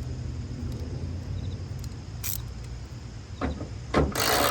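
Hand tools working a bracket bolt: a brief rasp about two seconds in, then several short, rasping mechanical strokes near the end, over a low steady rumble.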